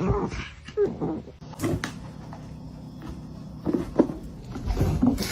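A dog making a few short vocal sounds, with several sharp knocks.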